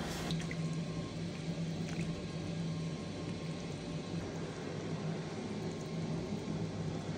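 Syrup pouring from a ladle onto a tray of pistachio pastry rolls, over a steady low hum of kitchen machinery.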